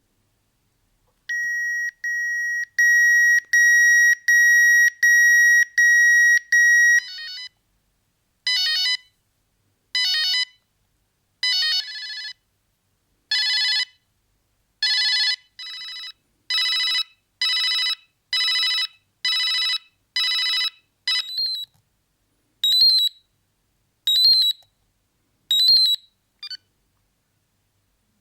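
Siemens C45 mobile phone playing its electronic ringtones, one clear note at a time: first a run of about seven steady beeps at one pitch that get louder after the first two, then short beeping melodic phrases repeated every second or so.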